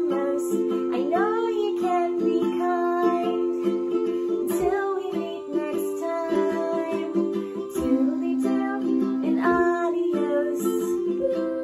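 Ukulele being strummed, with a voice singing a melody over it.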